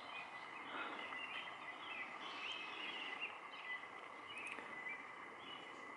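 Faint outdoor ambience with distant small birds chirping, many short calls scattered throughout over a steady thin tone.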